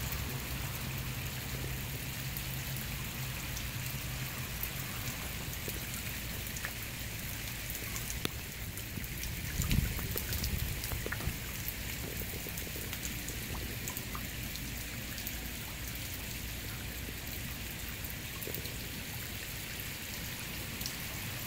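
Rainwater running down an aluminum fleur-de-lis link rain chain and splashing at its foot: a steady wash of water with scattered small drip ticks. A low thump about ten seconds in.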